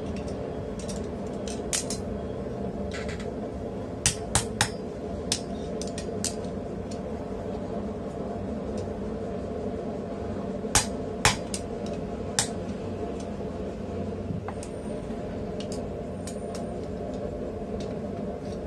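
Scattered sharp, ringing clinks of a hammer and steel tools striking hot steel on a steel swage block and anvil during hand forging, about a dozen irregular blows in small groups, over a steady background noise.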